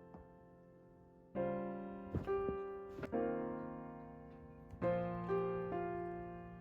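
Gentle piano music: sustained chords that fade after each strike, soft for about the first second and a half, then a new chord and a slow melody.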